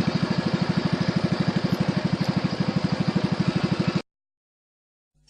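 Engine running steadily with a rapid, even putter, cutting off abruptly about four seconds in, followed by a second of silence.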